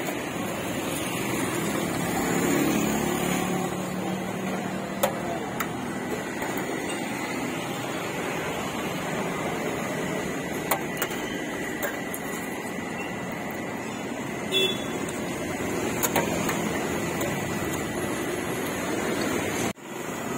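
Steady street ambience dominated by traffic noise, with a few sharp clicks and knocks scattered through it; the sound cuts out for an instant near the end.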